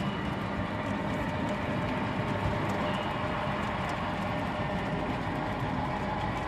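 HO scale model train running steadily along the track, a continuous even running noise with a few faint ticks.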